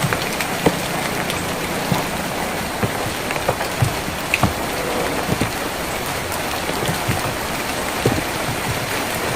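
Steady rain falling on a tin roof, with irregular louder drops striking sharply throughout.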